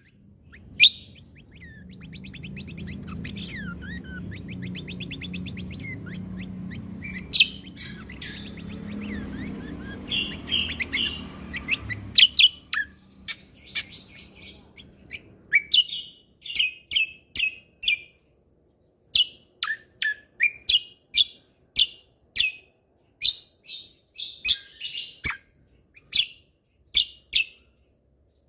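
Cucak kombo (kecial kombok) songbird singing: a fast, chattering trill over a low hum for about the first half, then a long series of short, sharp notes, roughly one or two a second.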